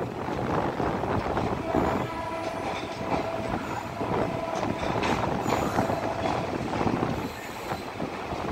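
Indian Railways passenger train rolling slowly through a station, heard from the coach doorway: a steady rumble of wheels on the rails with scattered clicks and knocks. A held tone sounds from about two seconds in until about seven seconds in.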